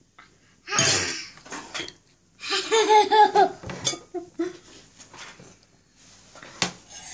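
Laughter in short, quick pulses about two and a half seconds in, after a brief breathy burst about a second in. A sharp click comes near the end.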